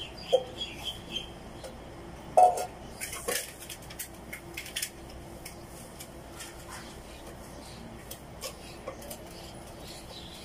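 A person chewing close to the microphone, eating sour bamboo-shoot salad and June beetles: short crunches and wet mouth clicks, busiest in the first five seconds and sparse after.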